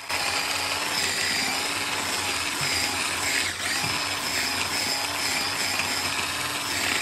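Rico cordless rechargeable electric mini chopper switching on and running steadily, its motor whining as the blades chop onion, green chilli and coriander in the jar.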